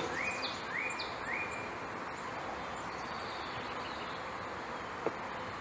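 Honeybees buzzing steadily around a freshly installed package-bee hive. A quick series of short chirps sounds in the first second and a half, and there is a single sharp tap about five seconds in.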